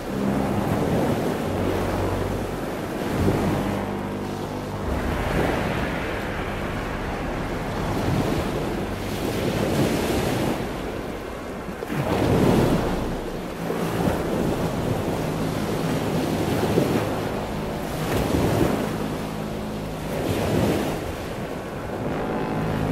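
Rough sea: waves surging and washing in swells every two or three seconds, with wind and a low steady drone underneath.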